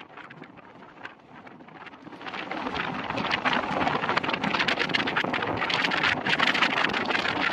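Wind buffeting a microphone held out of a moving passenger train's window, over the running noise of the train. The wind rises sharply to a loud, crackling roar a little over two seconds in and stays there.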